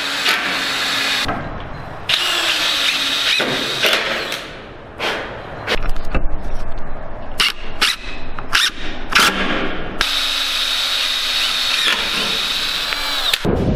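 Cordless drills running in several bursts with a steady motor whine: a run near the start, a string of short trigger blips in the middle, and a longer run of a few seconds near the end. They are drilling countersunk pilot holes and driving screws into hardwood deck slats.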